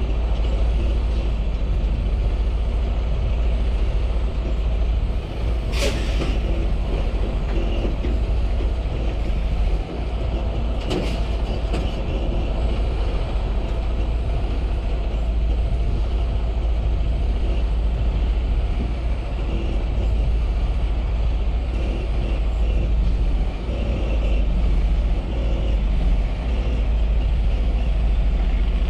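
Semi-truck diesel engine running at low speed while the tractor reverses a 53-foot container trailer, a steady heavy rumble, with two brief sharp sounds about six and eleven seconds in.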